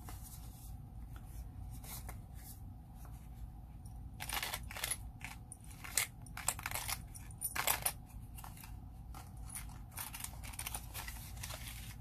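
Paper cards and clear plastic pocket sleeves rustling and scraping as they are handled and slid in and out of a pocket letter, with small clicks and a run of louder crinkles between about four and eight seconds in.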